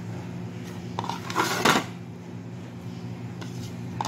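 Chopped tomato pieces being scraped by hand off an enamel plate, with a short clatter of dish handling about a second and a half in, over a steady low hum.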